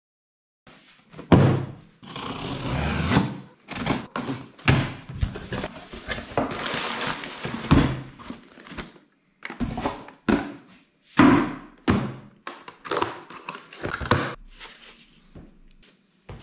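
Cardboard boxes being handled and opened by hand: dull thunks of boxes and lids set down and knocked, between stretches of cardboard scraping and rustling.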